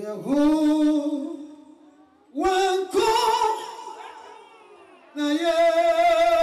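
A woman singing gospel solo and unaccompanied into a microphone: three long, held phrases, each swelling and then fading, with short breaks between them.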